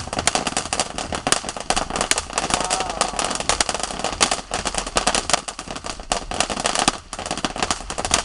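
A consumer firework going off with a dense, irregular run of sharp crackling pops, many a second, without a break.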